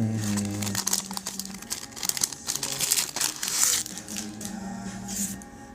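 Foil trading-card pack wrappers crinkling and tearing as packs are ripped open and handled, in irregular crackles.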